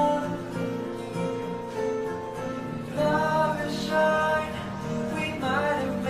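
A background song: a singer with instrumental accompaniment, a new sung phrase coming in about halfway through.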